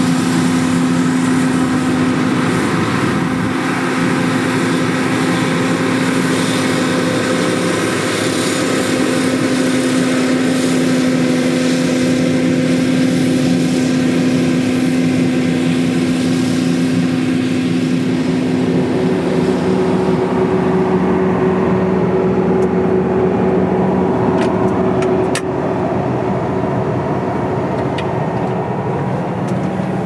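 John Deere combine harvester running steadily while cutting wheat: a continuous engine drone mixed with the rush of the threshing machinery. The drone shifts to a different pitch about two-thirds of the way in.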